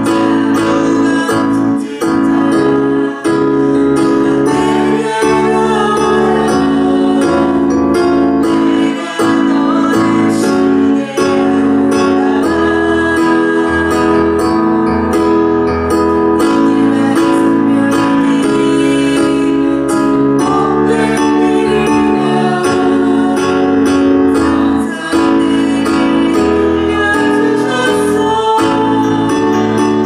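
Worship music from a church praise band: guitar over sustained chords that change every few seconds, playing steadily without a break.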